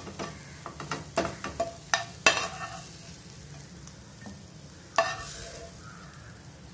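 Steel spoon scraping and clinking against a nonstick frying pan as fried brinjal poriyal is scooped out. A quick run of clinks comes in the first two and a half seconds, then one sharper, ringing clink about five seconds in.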